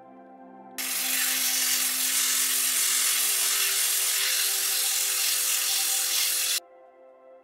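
Sandpaper rubbing over a wooden knife handle by hand. It is a loud, steady, rough hiss that starts about a second in and cuts off suddenly near the end, over soft ambient music.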